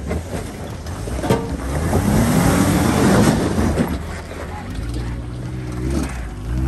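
Jeep Wrangler Rubicon's engine revving under load in first gear while climbing a rock ledge, with a rush of tyre spin and scattering gravel about two seconds in. A sharp knock, like the underside or a tyre striking rock, comes just after a second in, and the engine revs rise again near the end.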